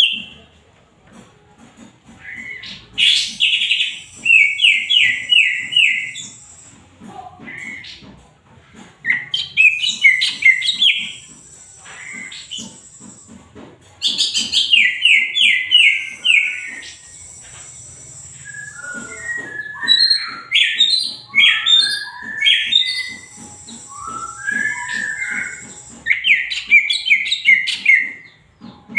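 Green leafbird (cucak ijo) singing vigorously in repeated phrases of rapid, loud, chattering high notes, each phrase lasting a few seconds with short pauses between. The phrases in the middle are more varied and dip lower in pitch.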